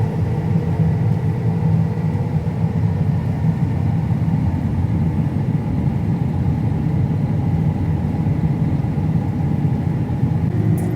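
Combine harvester engine and machinery running steadily: a constant low rumble with a faint steady high whine above it.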